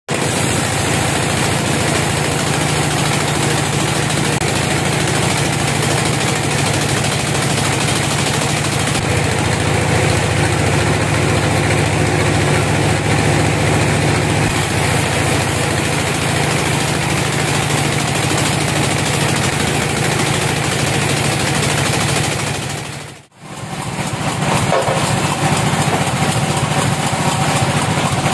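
Band sawmill running steadily, a continuous machine drone as the blade saws a teak log. The sound drops out abruptly for a moment about 23 seconds in, then carries on.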